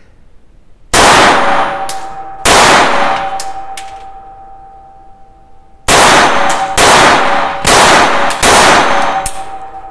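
Six pistol shots from a Dreyse 1907 semi-automatic in 7.65 mm: two about a second and a half apart, then after a pause four more in quicker succession about a second apart. Each shot leaves a fading ring.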